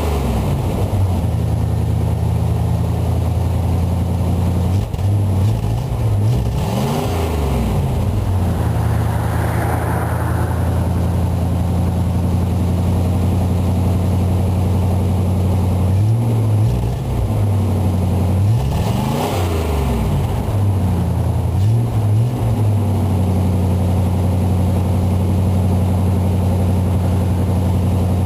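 A 1985 GMC C10's carbureted 305 small-block V8 with no catalytic converter, idling with a loud, steady exhaust note. A handful of quick throttle blips rise and fall back to idle, the two biggest about 7 and 19 seconds in.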